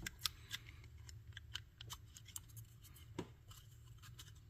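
Light, scattered plastic clicks and taps from the Icom IC-4100A control head's housing and buttons being handled and fitted back together, with one sharper click about three seconds in.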